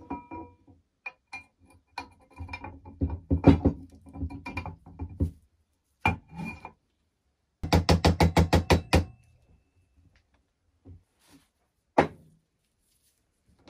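Metal parts of a manual potato chipper being fitted together: knocks, clinks and taps as a pivot pin goes through the body. About eight seconds in comes a quick even run of about a dozen taps, and there is one sharp knock near the end.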